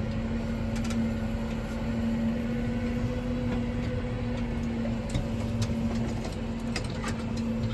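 Tractor engine running steadily, heard from inside the cab while the tractor reverses with a seed drill, with a few faint clicks.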